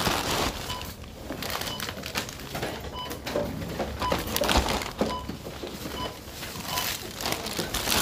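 Supermarket checkout ambience: barcode scanners at the tills beep with short high beeps about once a second, irregularly, over the rustle and crinkle of bags and packaging.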